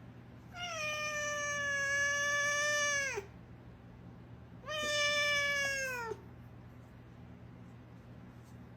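A cat giving two long, drawn-out meows, the first lasting about two and a half seconds and the second shorter. Each holds a steady pitch and drops at the end.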